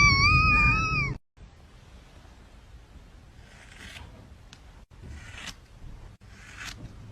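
A cat's long meow with a wavering pitch, cutting off suddenly about a second in. After it, only a few faint soft rustling sounds.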